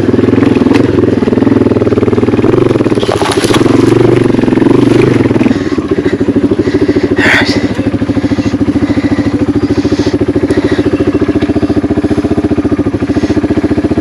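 Yamaha TW200's single-cylinder four-stroke engine running under load, then dropping to a steady idle about five and a half seconds in. A short, sharp sound comes through about seven seconds in.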